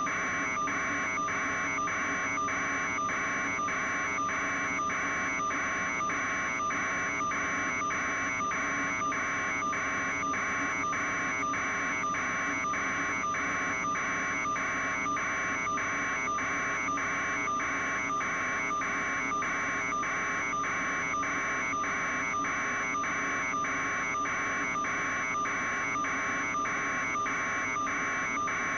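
Electronic interference buzz on a helicopter video feed's audio: a steady hiss with a constant high whine, and a buzzing tone that pulses evenly about twice a second.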